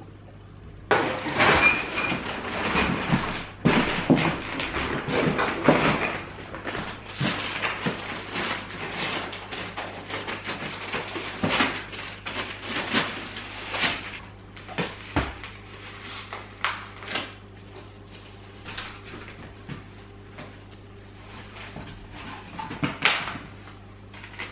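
Household items being handled and set down: irregular knocks, clatter and rustling, busy for the first half and sparser later.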